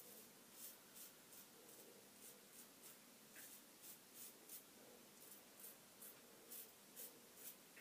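Merkur 33C double-edge safety razor scraping through stubble on the chin in quick, faint, short strokes, about two or three a second.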